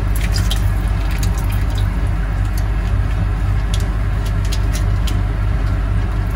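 Liquid ramen seasoning squeezed out of a plastic sachet and dripping into a pot of water, with many short crinkles and clicks as the packet is pinched and worked empty, over a steady low hum.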